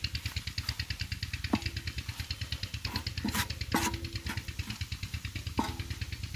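Wooden spoon stirring keema on an iron tawa, knocking against the griddle several times so that each knock leaves a short metallic ring. A steady, fast-chugging engine runs underneath.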